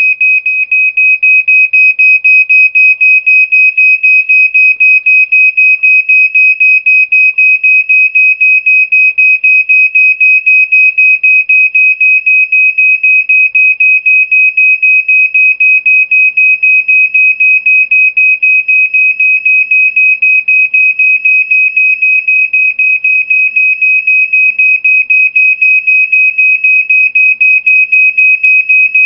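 Smoke alarm's piezo horn sounding: a loud, shrill high-pitched tone that pulses rapidly and evenly without letting up.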